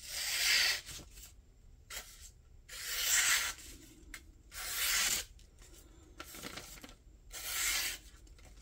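Kizer Deckhand's D2 sheepsfoot blade slicing through paper in four slow drawn cuts, about two seconds apart, testing the factory edge, which proves very sharp.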